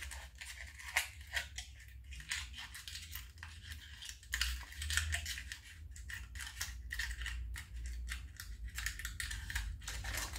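Small metal wire-puzzle chain and pieces clinking and scraping against a cardboard packaging insert as they are worked free by hand: irregular light clicks and rustles throughout.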